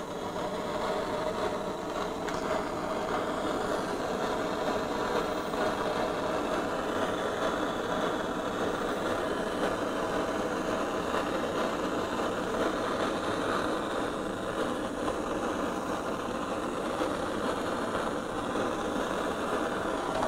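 Hand-held gas torch burning steadily, its flame played on a motorcycle wheel hub to heat it so the wheel bearing can be pulled out.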